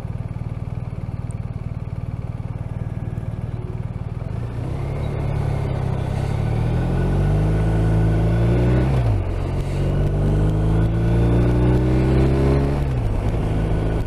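BMW R 1250 RT's boxer-twin engine idling, then pulling away from a stop. The engine note rises, drops at a gear change about nine seconds in, rises again and drops at a second change near the end.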